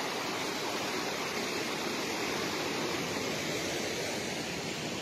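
The Bregalnica river in flood, its swollen, turbulent water rushing steadily after heavy rain.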